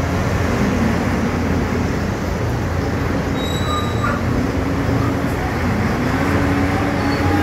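Heavy Mercedes-Benz truck diesel engines running loudly, their pitch wavering and rising near the end as they rev while pulling away.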